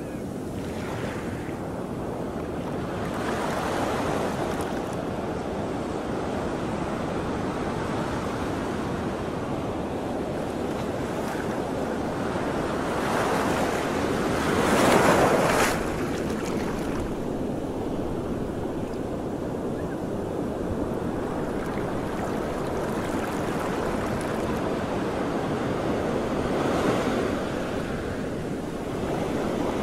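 Sea waves washing and splashing, with wind rumbling on the microphone; the noise swells a few times, loudest about halfway through.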